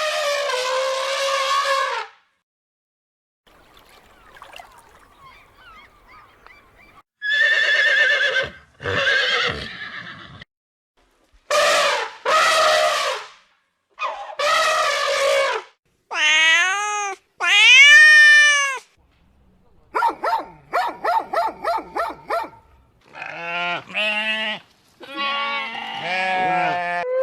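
A string of separate farm-animal calls, each a second or two long with short gaps: bleat-like cries, two long rising-and-falling calls, and a quick run of short repeated calls about two-thirds of the way in.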